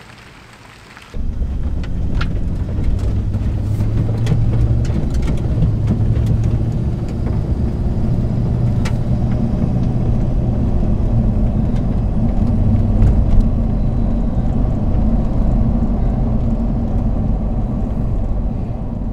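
Interior cab noise of a 2006 Toyota Tundra pickup under way on a paved road: a steady low engine and road rumble that cuts in suddenly about a second in, with a few light clicks over it.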